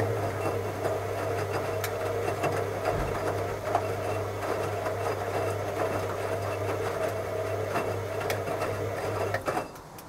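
Hoover Logic front-loading washing machine tumbling the wash during a rinse: a steady motor hum as the drum turns, with laundry shifting and occasional clicks. Near the end the motor stops with a couple of clicks as the drum pauses.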